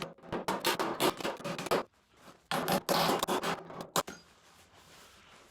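A body tool working the sheet-metal quarter panel in quick, scratchy strokes: two rapid runs, then a single sharp tap near the end. It is the metal being "massaged" to smooth out a crease.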